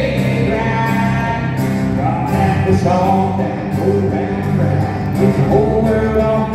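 Live country band playing, with acoustic guitars and bass under a man singing lead, amplified through an arena PA.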